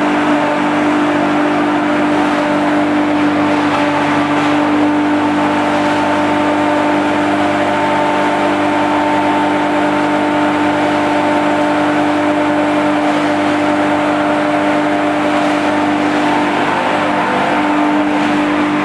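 Electric-motor-driven hammer mill and its blower running steadily under load while grinding corn straw: a constant loud hum with a steady whine over a dense rushing noise.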